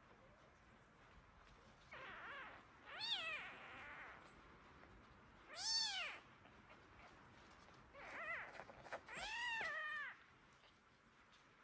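Small kitten mewing: about five high-pitched mews, each rising then falling in pitch, the loudest about six seconds in and the longest near the end.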